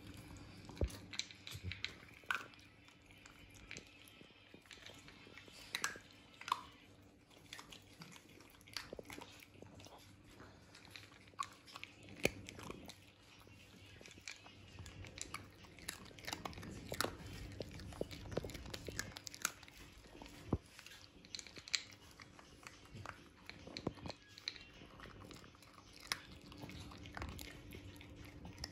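A Yorkshire terrier eating dry kibble from a bowl: faint, irregular crunching as it bites and chews the pellets, many sharp crunches at uneven intervals.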